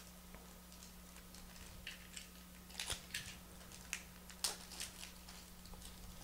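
Scissors snipping open a foil-wrapped trading-card pack: a few short, sharp snips and wrapper crackles, the loudest about four and a half seconds in, over a faint steady hum.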